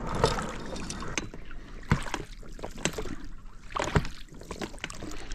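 Small boat moving through shallow river water: water splashing and sloshing, with irregular knocks and thumps against the hull, the sharpest about two and four seconds in.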